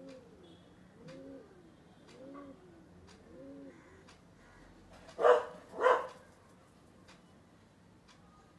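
Feral pigeon cooing, a series of soft arched coos about once a second. A little past the middle a dog barks loudly twice, about half a second apart.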